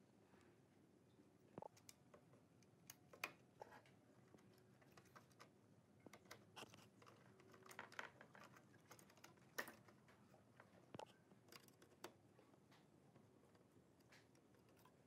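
Faint, irregular clicks and light taps of plastic parts, wires and a circuit board being handled and fitted into a stereo radio's plastic front-panel housing.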